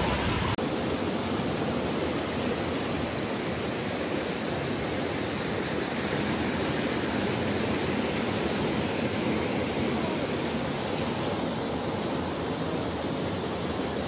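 Steady rushing of a waterfall and its rocky stream, an even wash of falling water, after a brief break about half a second in.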